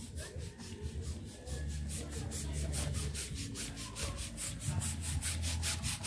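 Hand air pump inflating a foil balloon: a fast, even series of hissing pump strokes, about five a second, with wind buffeting the microphone.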